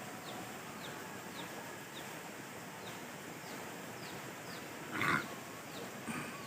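A small bird chirping over and over, short high falling notes about twice a second, over a steady outdoor hiss. About five seconds in there is one brief louder sound.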